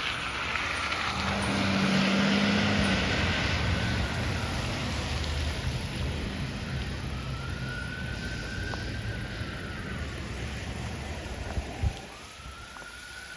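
Fire apparatus siren wailing, rising and falling slowly about three times over steady road traffic noise. A low steady tone sounds for about two seconds a second in, and a short sharp knock comes near the end.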